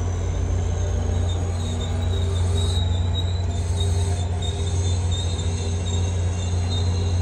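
NJ Transit passenger coaches rolling past along a platform: a steady low rumble with a thin, high wheel squeal that comes and goes.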